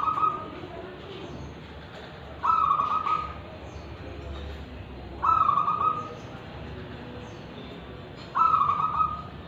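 Local wild zebra dove (perkutut) cooing, a loud, clear call held near 1 kHz and repeated about every three seconds: three full calls, plus the end of one at the start. Its voice is of the clear type that perkutut fanciers call 'kristal' (crystal).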